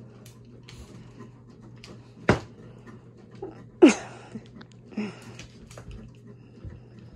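Dogs vocalizing and moving about: a sharp knock about two seconds in, then a short yelp falling in pitch near four seconds, the loudest sound, with a few smaller grunts and scuffles after it.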